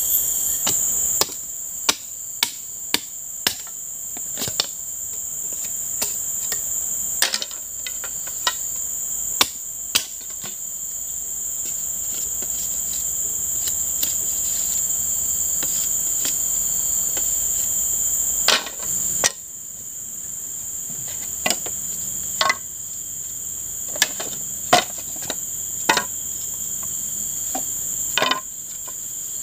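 A machete knocking on bamboo, with sharp strikes at irregular intervals. Behind it, a steady high-pitched chorus of forest insects.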